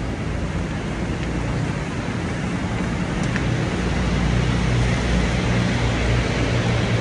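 Steady road traffic noise, with a low engine rumble that grows louder about halfway through.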